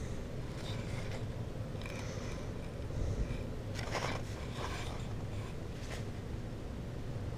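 Steady low hum and airflow of a central air-conditioning system running, with a few faint rustles and scrapes of handling about two, four and six seconds in.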